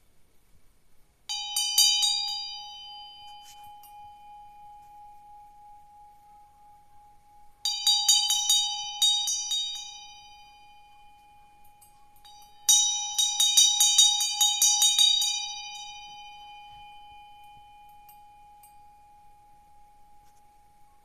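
Bronze Tibetan Buddhist hand bell rung three times, each ringing a quick flurry of clapper strikes with bright, shimmering overtones that fade within a few seconds. One steady tone keeps ringing between the bursts and long after the last one.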